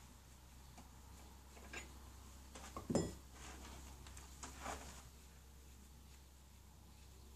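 A few light metallic clinks and knocks as wheel nuts and a wrench are handled against a tractor's steel wheel rim, the loudest about three seconds in.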